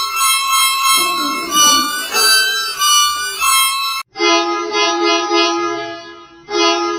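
Indian bus musical horn sounding a short tune of stepped notes. About four seconds in it cuts abruptly to a lower-pitched horn variation playing a repeated note pattern, which starts over near the end.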